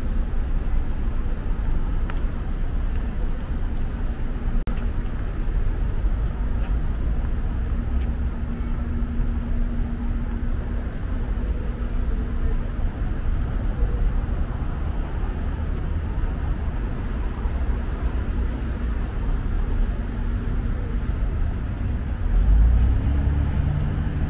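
Steady rumble of city road traffic, cars driving along a multi-lane avenue. Near the end a vehicle passes closer and louder, its engine note bending in pitch.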